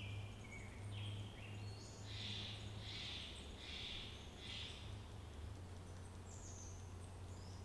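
Birds calling in the forest with short, high whistled notes. Four short hissy notes come a little under a second apart, from about two to four and a half seconds in. A low steady hum runs underneath.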